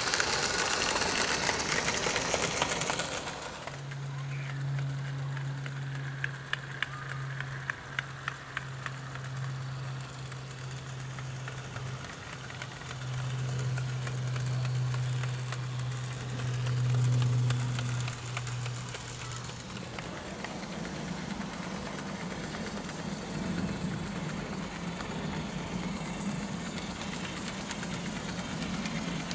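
Model Class 47 diesel locomotive running on garden railway track: a steady low hum with a few sharp clicks of wheels on rail joints. The hum changes pitch about two thirds of the way through, after a hissy first few seconds.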